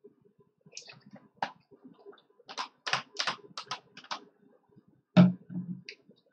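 A run of light clicks and taps over about three seconds, then one louder thump about five seconds in.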